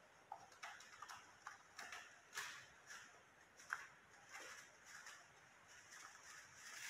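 Faint, irregular light clicks and scuffles, a few each second.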